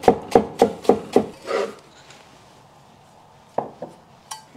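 Cleaver chopping parsley on a wooden cutting board, about three chops a second, stopping about a second and a half in. A single knock follows near the end.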